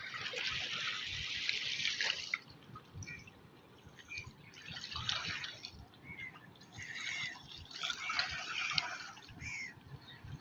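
River water lapping and trickling at the bank, the sound swelling and fading in surges every couple of seconds.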